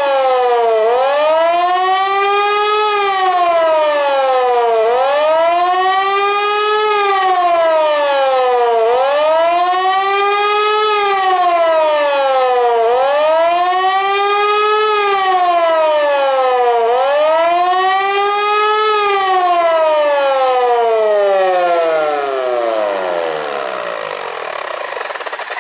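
HLS 273 pneumatic high-performance siren sounding the 'Warnung' warning signal, a loud howling tone that rises and falls about every four seconds. Near the end it winds down in a long falling glide, getting quieter, and stops as the signal ends.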